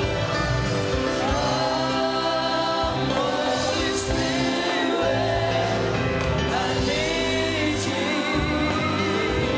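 Gospel worship song: several voices singing over steady held chords and a bass line.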